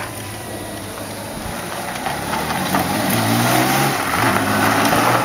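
Kawasaki ZN1300 Voyager's inline-six engine running as the motorcycle rides by, growing louder as it comes closer, with the engine note rising and falling about three seconds in.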